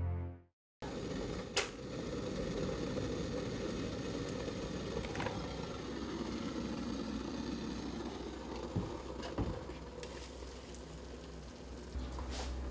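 Electric kettle heating water: a steady rumbling hiss, with a few sharp clicks. A low hum comes in near the end.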